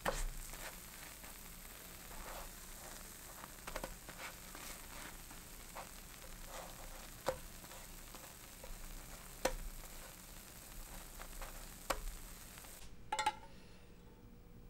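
Taro rice cakes sizzling in oil in a nonstick frying pan, with a steady hiss and a spatula clicking against the pan every few seconds. The sizzle cuts off near the end, followed by a couple of light clicks.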